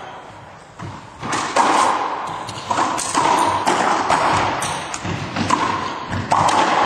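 Racquetball rally: a string of about eight sharp hits as the ball cracks off racquets and the court walls, each one ringing in the enclosed court.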